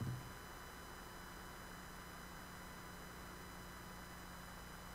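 Steady low hiss with a faint electrical hum and thin high whines: the recording's background noise, with no one speaking. A brief low blip sounds right at the start.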